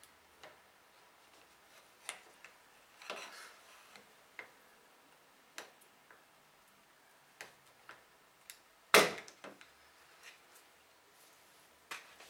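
Light clicks and taps of a flat metal pry tool working under a BMW roundel emblem on the hood, with one loud sharp snap about nine seconds in as the emblem pops free of the hood.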